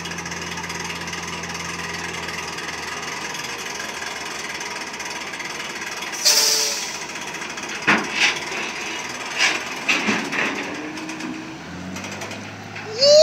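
Heavy diesel engine of a loaded log truck running, with a fast rattling clatter. A short hiss comes about six seconds in, followed by several knocks in the last few seconds.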